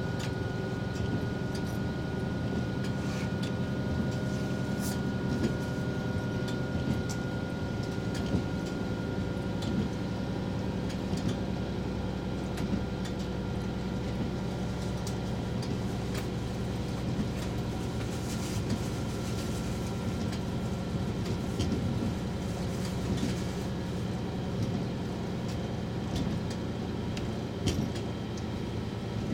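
Diesel express train running along the line, heard from the front cab: a steady engine and running drone with the wheels on the rails and scattered clicks throughout.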